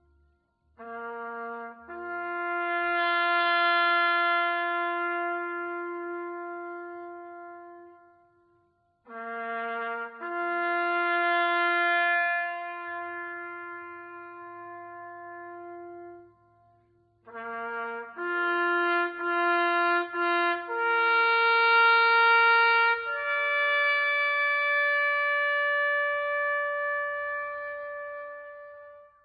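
Bugle playing a slow call in three phrases, each opening with a few short notes and settling into long held notes; the final high note is held for several seconds and fades near the end.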